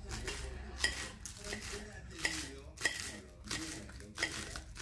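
A spoon stirring the chicken empanada filling, scraping and clinking against its cookware about every two-thirds of a second.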